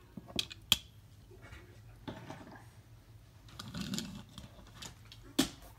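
Toy cars being handled: a few sharp clicks, two about half a second in and one near the end, with soft scuffing between.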